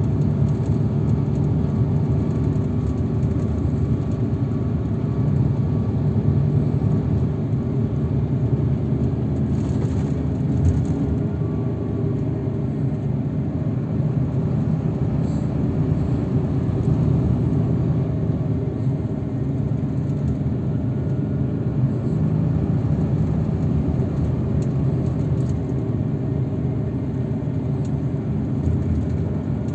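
Steady engine and road rumble of a transfer vehicle under way, heard from on board, with a short knock about ten seconds in.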